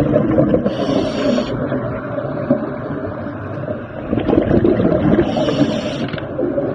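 A steady mechanical drone, with a short high-pitched sound twice: about a second in and again about five seconds in.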